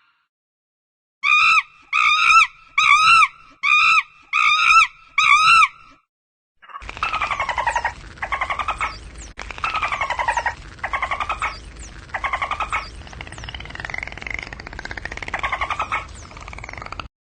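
Animal calls from two separate clips. First comes a run of seven short pitched calls, evenly spaced. After a brief break, a different animal gives repeated rasping calls that fall in pitch, over a steady background hum.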